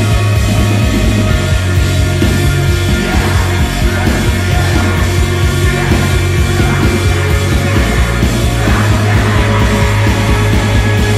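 Loud rock music with a strong, heavy low end.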